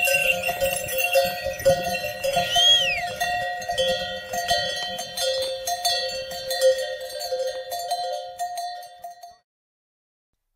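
Bells on a train of pack yaks clanking and ringing as the animals walk, with a short high whistle that rises and falls about two and a half seconds in. The sound cuts off about a second before the end.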